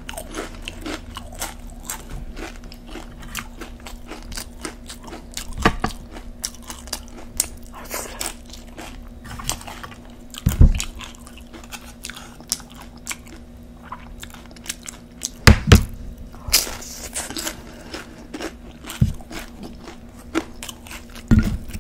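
Tortilla chips (nachos) crunching as they are bitten and chewed: a steady patter of small crunches with several louder bites scattered through, the loudest about two-thirds of the way in.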